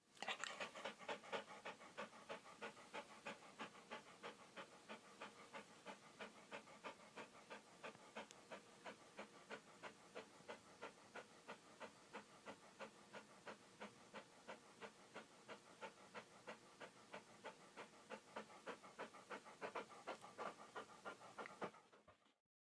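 Dog panting rapidly and steadily, about four or five breaths a second, fading in at the start and out near the end.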